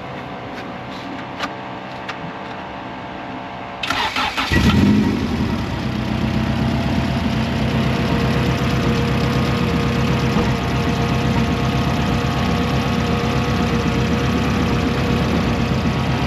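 Car engine cranked by the starter about four seconds in, catching with a brief rev and then settling into a steady idle.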